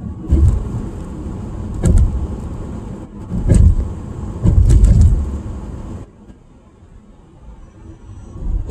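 Road and engine noise heard from inside a car cruising at highway speed, about 80 km/h, with several heavy low thuds in the first five seconds. The noise drops much quieter after about six seconds.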